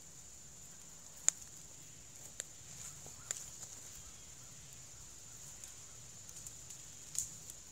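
Beech spokes and vine weavers of a basket clicking and crackling as they are bent and woven by hand: a few sharp clicks, the loudest about a second in and another near the end, over a faint steady hiss.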